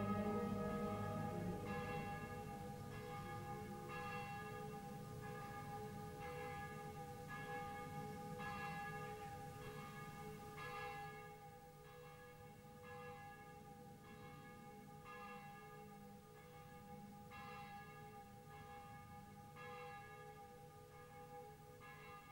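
Church bells ringing, a strike about every three quarters of a second over a steady ringing hum, slowly fading.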